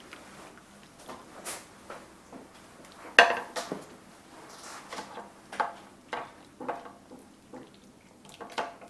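Serving utensils clinking and scraping against a slow-cooker crock and a plate as chicken and sauce are scooped out and served: a string of irregular short clinks, the loudest about three seconds in.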